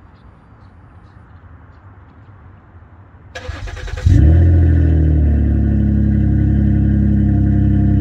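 Car engine cranked by its starter for under a second, catching about four seconds in with a short rise in revs, then settling to a steady idle, heard at the exhaust tailpipe.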